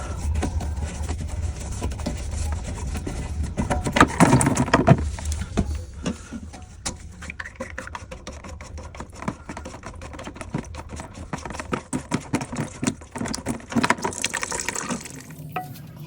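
Water running and splashing in a toilet tank, with clicks and knocks of plastic parts being handled; the water is loudest about four seconds in.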